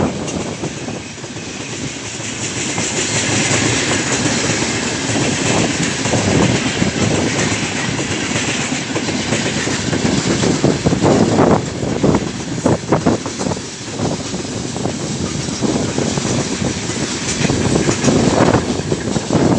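Freight train of gondola wagons passing close at speed: a steady rolling rumble of steel wheels on rail, broken by clusters of clattering as wheelsets cross the rail joints, strongest about eleven to thirteen seconds in and again near the end.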